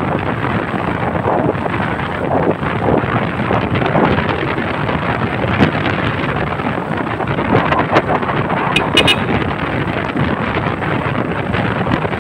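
Wind buffeting the microphone of a moving vehicle, over steady road and engine noise. A short run of high beeps comes about nine seconds in.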